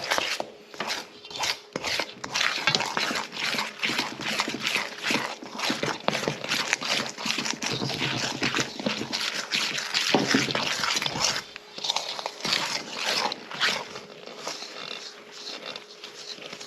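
A spoon or spatula stirring and scraping thick cookie dough in a mixing bowl, with quick, irregular scrapes and knocks against the bowl.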